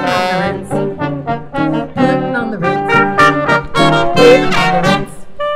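Dixieland jazz band playing, with brass to the fore.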